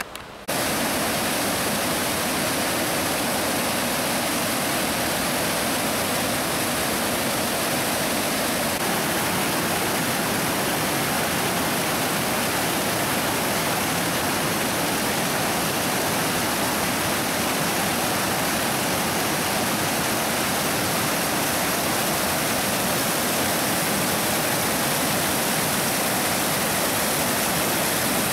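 Mountain stream cascading over boulders in small falls: a steady, dense rush of white water that starts abruptly about half a second in.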